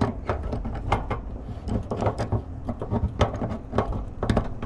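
Wrench working the threaded quick-connect fittings of a mini-split line set onto the outdoor unit: irregular metallic clicks and knocks as the fittings are tightened.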